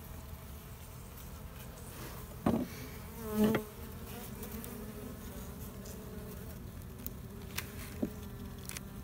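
Honey bees buzzing steadily around an open top bar hive, with two brief louder buzzes between two and four seconds in and a few light clicks near the end.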